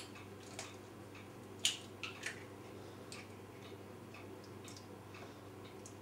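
A few light eggshell clicks and taps as an egg is cracked and its yolk separated by hand. The sharpest click comes about one and a half seconds in, with two softer ones right after and faint ticks later.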